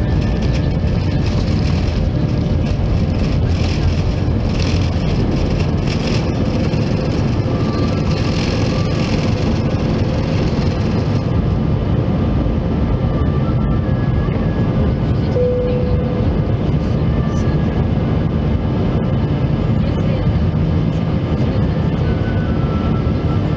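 Jet airliner's turbofan engines at takeoff thrust, heard from the cabin beside the wing, over the rumble and rattle of the runway roll. About eleven seconds in the rattling stops as the wheels leave the ground, and the steady engine noise carries on into the climb.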